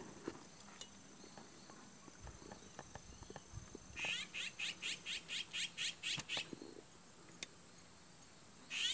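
A small wild animal repeating a short high chirp about three times a second, in two runs about 4 seconds in and again at the very end, over a faint steady high-pitched tone. A few light clicks of handling come in between.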